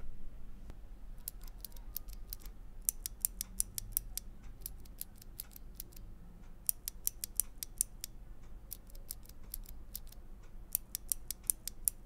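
A loose Cherry MX Blue switch and a loose Zealiostotle switch (Zealio with a click jacket) pressed by hand in turn, each giving sharp clicks. The clicks come in quick runs of several presses with short pauses between them.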